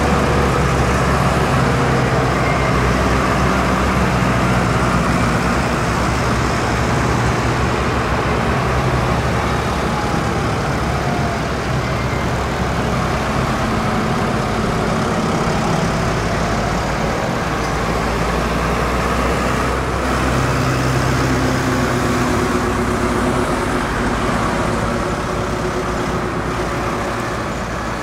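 A convoy of large farm tractors driving past one after another, their diesel engines running in a continuous drone with tyre noise on the road. The engine pitches drift up and down as each tractor goes by.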